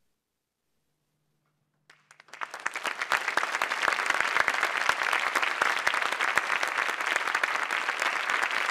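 Near silence, then an audience starts to applaud about two seconds in, quickly swelling to steady clapping.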